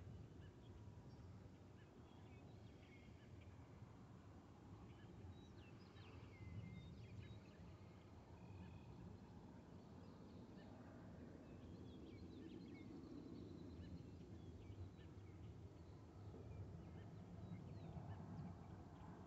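Faint rural evening ambience: scattered short, high bird chirps over a low, steady rumble.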